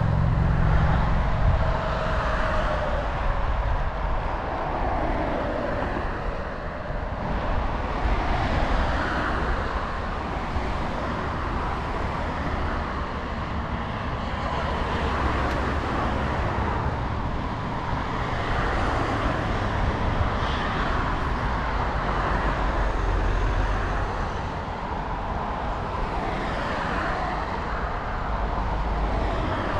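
Riding noise from a camera on a moving bicycle: wind rumbling on the microphone and tyres on asphalt, with cars passing now and then on a road alongside.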